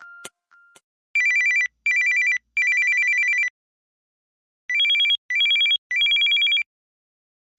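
Samsung SGH-T369 mobile phone playing a classic telephone-style ringtone: a rapid electronic warbling trill in three short bursts, a pause, then three more bursts, the second group a little higher in pitch.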